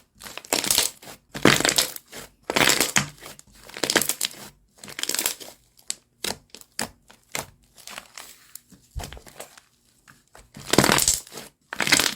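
Slime being squeezed and pressed by hand: a run of short noisy squishes, roughly one a second, with a brief lull a little before the end and louder squishes near the end.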